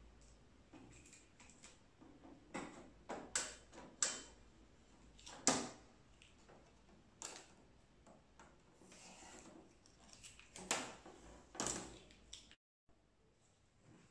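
Hands handling a new white plastic Epson EcoTank L3156 printer while unpacking it: irregular clicks and knocks of its lid and panels with short rustles as the blue protective tape is peeled off. The loudest knock comes about five and a half seconds in, and the sound drops out abruptly near the end.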